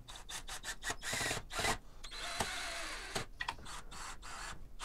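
Cordless drill driving a pocket-hole screw into a pine rail, running in short stop-start bursts with clicks and knocks in between.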